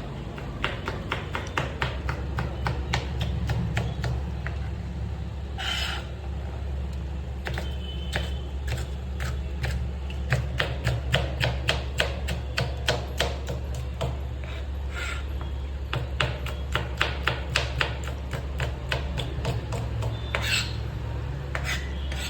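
Knife chopping on a cutting board: a long run of quick, even knocks, several a second, over a steady low hum.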